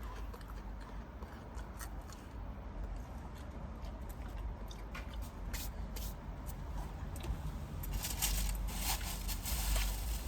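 Close-miked chewing and mouth sounds from eating: scattered soft, wet clicks that grow busier and louder near the end.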